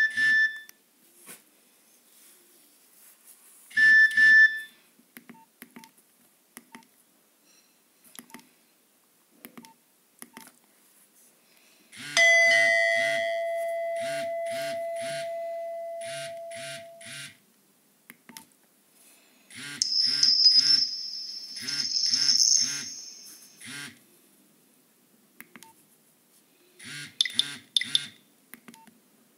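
Nokia 2220 slide phone's loudspeaker playing previews of its message alert tones: two short beeps near the start, a longer steady tone about twelve seconds in, and a higher-pitched tone sequence about twenty seconds in. Soft repeated clicks of the phone's keypad run between the tones as the menu is scrolled.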